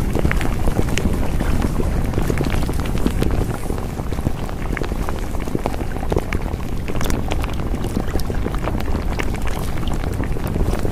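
A steady low rushing noise with dense crackles and pops throughout.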